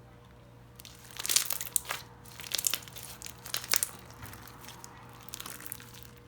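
Hands squishing and stretching a thick slime with little square blocks mixed in, giving crackly, crunchy pops in four or five bursts, the loudest about a second in.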